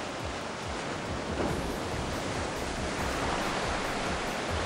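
Sea surf washing and breaking against the rocks below, a steady rush of wave noise.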